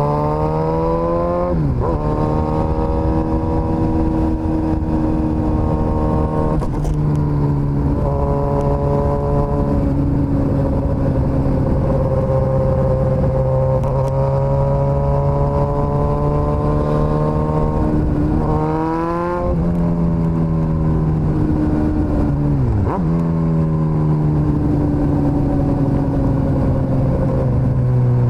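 Suzuki GSX-S1000's inline-four engine under way, accelerating with a rising pitch that drops sharply at each gear change, about five times. A long stretch of steady cruising comes in the middle, and there is a quick rise in revs about two-thirds of the way through.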